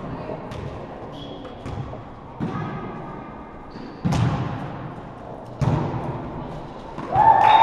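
Volleyball being struck in a large, echoing gym: a few thuds, the two loudest about four and five and a half seconds in, over faint chatter. Near the end a high voice shouts out and holds the call.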